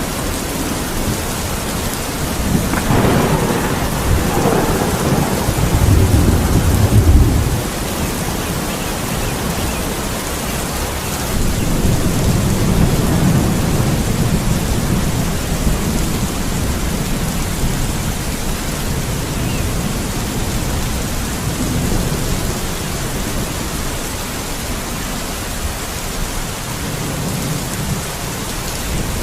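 Steady rain with rolling thunder: a crack about three seconds in that rumbles on until about seven seconds, then another low rumble from about eleven to fifteen seconds.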